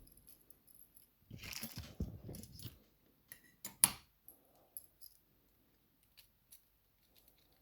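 Handling of a dimple lock and small metal tools: rustling and scraping for a second or two, then a few sharp clicks around four seconds in, then occasional faint ticks.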